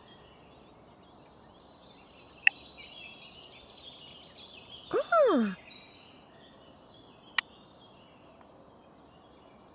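Cartoon sound effects as parts of a toy submarine are put together: a sharp click about two and a half seconds in, a short sound falling in pitch with a brief swoosh about five seconds in, and another click near seven and a half seconds, over faint background birdsong.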